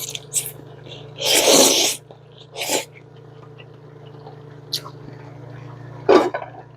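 A person tasting a hot noodle from the pot, making a loud breathy mouth sound about a second in, then a shorter one, and another near the end.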